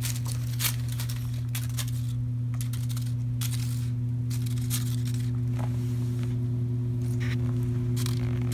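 Kittens playing on a wooden floor, with scattered small crinkles and clicks as a kitten paws at a metallic foil ribbon bow toy. A steady low hum runs underneath and is the loudest sound.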